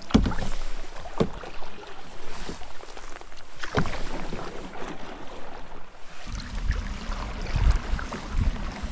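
A canoe being paddled down a moving creek: paddle splashes over running water, with a few sharp knocks early on.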